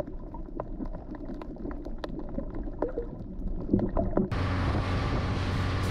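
Boat-and-water sound: at first muffled gurgling with scattered knocks. About two-thirds through it switches suddenly to a louder, steady engine-and-water noise from a boat under way.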